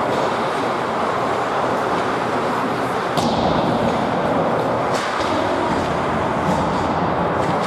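Ice hockey play in a rink: a steady wash of arena noise with a few sharp clacks and scrapes of sticks, puck and skates on the ice, the loudest about three seconds in.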